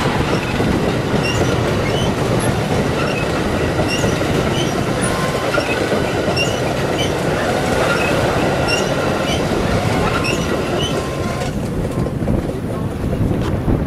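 Metra bilevel commuter train cars passing close by at speed: a steady rumble of wheels on rail with brief high squeaks recurring throughout. The noise drops away near the end as the last car goes by.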